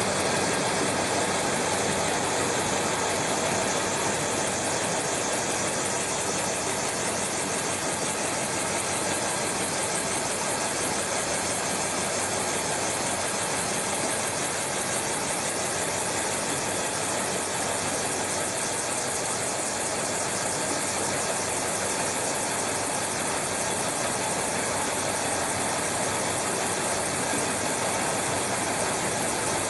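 Aerosol tin-can vacuum leak tester running steadily on the production line, an even mechanical noise.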